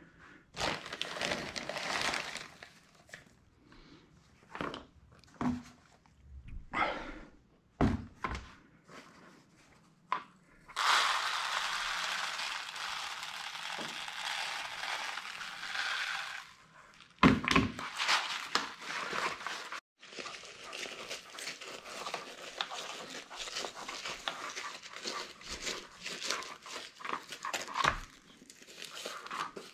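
Dry rice being poured into a small fabric shooting-rest bag through a narrow opening: crinkling and rustling of the bag first, then a steady hiss of grains streaming in for about five seconds, a knock, and later a long patter of rice trickling and being pushed in.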